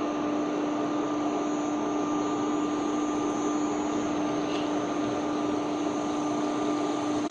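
Steady whirring hum with a constant low tone and a fainter higher one, from an induction cooktop's cooling fan, over the hiss of a folded pastry deep-frying in hot oil.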